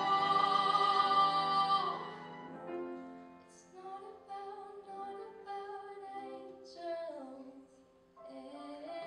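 A female singer singing through a microphone, accompanied by piano, cello and violin. She holds a loud long note for about the first two seconds, then the music drops to a quieter, gently moving passage.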